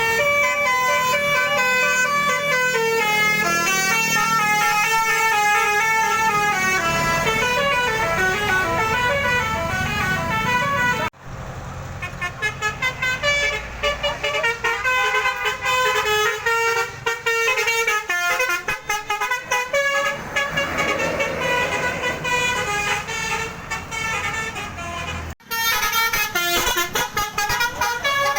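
Indonesian tourist bus's 'telolet' multi-note air horn playing fast melodic tunes, the notes stepping up and down. It breaks off suddenly about eleven seconds in and again shortly before the end, then starts again each time.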